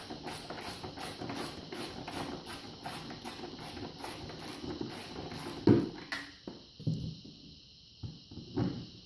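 3/8-inch ratchet wrench clicking steadily, about three or four clicks a second, as it backs out a muffler mounting bolt. The clicking stops about six seconds in, with a sharp metal knock just before and a few dull clunks after.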